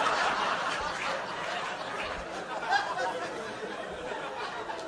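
Comedy club audience laughing, loudest at the start and slowly dying down.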